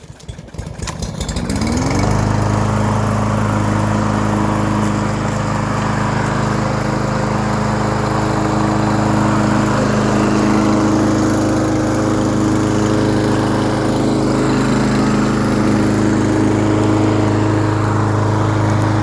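Craftsman M260 gas push lawn mower's engine starting, rising in pitch over the first two seconds, then running steadily at an even speed.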